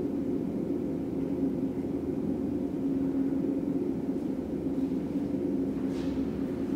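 Steady low machine hum with a held tone. Near the end there are a faint crunch or two of a lion chewing raw meat.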